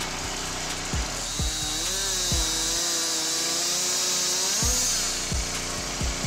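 Power saw cutting through wood for about three seconds, a hissing whine whose pitch rises as it starts and shifts again as it finishes. Background music with a steady beat plays throughout.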